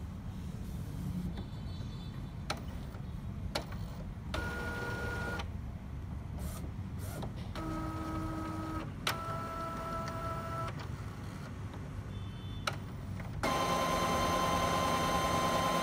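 Epson Stylus Photo T60 inkjet printer running its start-up cycle after being switched on: its motors whine in short runs a few seconds apart with sharp clicks between them. The last run, near the end, is longer and louder.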